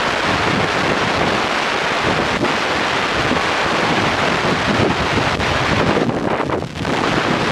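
Wind buffeting the microphone: a loud, steady rush that eases briefly near the end.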